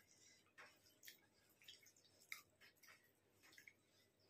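Near silence broken by about half a dozen faint, short wet clicks of people eating rice and curry by hand: chewing, lip smacks and fingers working the rice.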